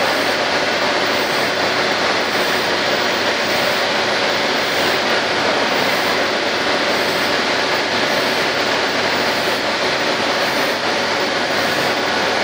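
HB30K superfinishing tool head working the surface of a turning steel screw-pump rotor on a machine tool: a loud, steady, even machining noise with no breaks.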